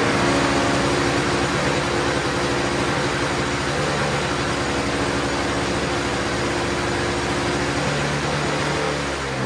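Toro Snow Commander snowblower's two-stroke engine running steadily, its engine note shifting slightly near the end.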